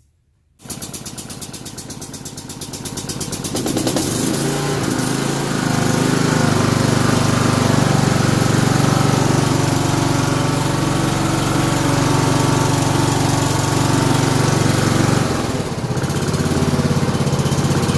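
Toro LX420 lawn tractor engine cranked by its electric starter, cranking for about three seconds before it catches, then running steadily, with a brief dip in speed near the end.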